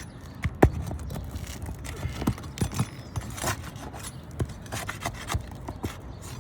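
Scraping and scattered light clicks and taps of hands and a tool working at asphalt roof shingles, the brittle shingles splitting as they are lifted.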